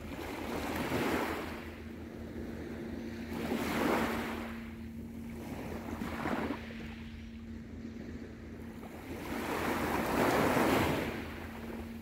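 Small waves of a calm sea breaking and washing up the beach, the surf swelling and fading four times, the last wash the longest.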